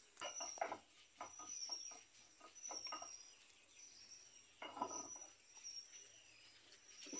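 A bird chirping faintly, one short high note repeated about every second, over scattered soft clicks and taps.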